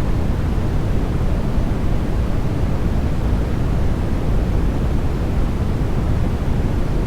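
Steady sleep white-noise track: an even, unchanging rush weighted toward the low end, more rumble than hiss.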